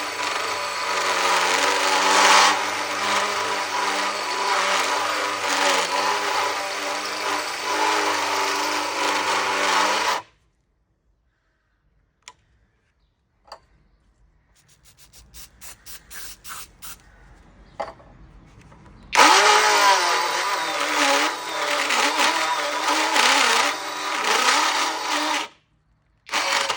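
Cordless combi drill driving a 40 mm tungsten-carbide-tipped hole saw through thick steel plate: a loud, steady grinding cut with ringing tones. It stops abruptly about ten seconds in. After a pause with a few clicks and short spurts of the drill, it resumes for about six seconds near the end. The plate is heavier than such hole saws are meant for.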